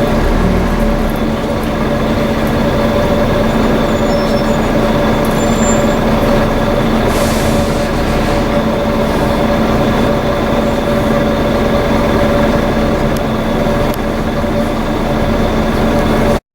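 Volvo B7TL double-decker bus running with its loud, steady 'hoover' whine, several steady tones, over the engine noise. About seven seconds in there is a brief hiss of air.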